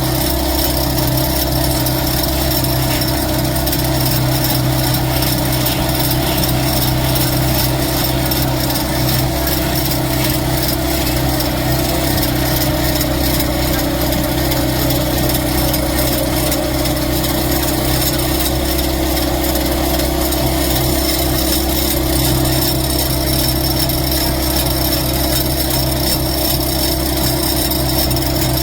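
Electric woodworking machine running steadily while it cuts or works wood, a continuous motor hum with a rough cutting noise over it.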